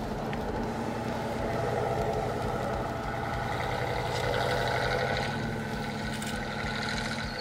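Off-road SUV's engine running steadily as the vehicle crawls through deep snow.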